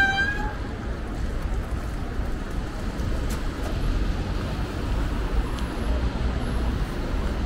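Street traffic noise with a steady low rumble. A vehicle horn sounding at the start cuts off about half a second in.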